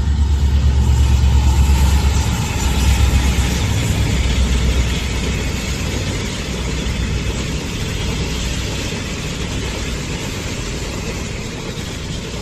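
A motor vehicle's engine running with a deep rumble, loudest in the first few seconds and then slowly fading.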